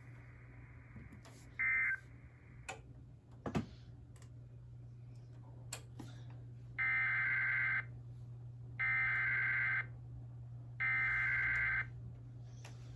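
Three one-second bursts of Emergency Alert System SAME digital data, the end-of-message code that closes the alert: a buzzy two-tone warble, the bursts a second apart. Under it runs a low steady hum, with a few scattered clicks and a brief electronic blip about two seconds in.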